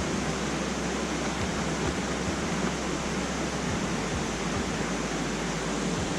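Waterfall on the McKenzie River: a steady, even rush of falling water.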